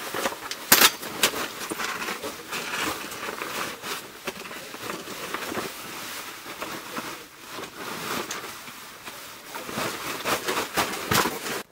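Folding camp cot being packed away: fabric rustling and the metal frame clicking as it is folded and pushed into its nylon carry bag, with one sharp snap about a second in.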